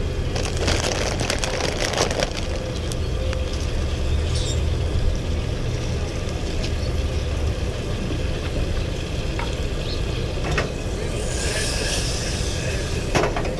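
Food sizzling in a frying pan on a two-burner camp stove, over a steady low rumble, with a few clicks of handling early on and a louder burst of hissing about eleven seconds in.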